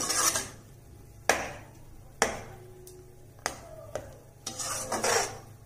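A perforated metal ladle stirs a thick masala gravy in a metal kadai, scraping along the pan between about four sharp knocks of the ladle against the pan.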